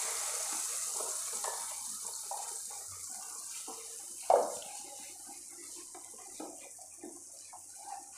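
Wet ground almond paste sizzling as it is poured into a hot pan and stirred with a wooden spatula, the hiss fading over the seconds. There is one louder clunk about four seconds in, and light scraping follows.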